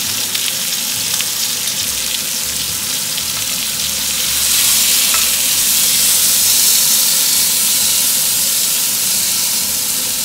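Pork tenderloin sizzling as it sears in olive oil in a ridged grill pan. The sizzle grows louder from about four seconds in, as the loin is turned over with tongs onto a fresh side.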